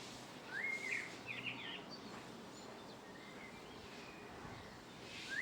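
A small songbird calling in short, quick chirpy phrases over a steady background hiss: a burst from about half a second to two seconds in, fainter calls in the middle, and more right at the end.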